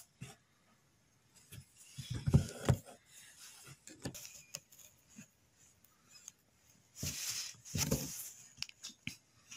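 Needle and embroidery thread being drawn through cloth stretched in an embroidery hoop: scratchy rasps of thread rubbing through the fabric, with a few small handling clicks, in two main spells, a couple of seconds in and near the end.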